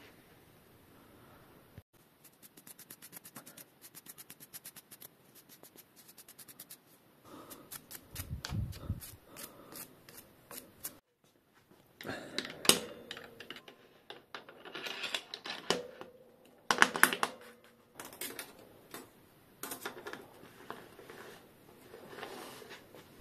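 Metal tool parts clicking, knocking and scraping as a bottom bracket facing tool is fitted into a bicycle frame's bottom bracket shell. A run of quick, even ticks is followed by louder, irregular clanks.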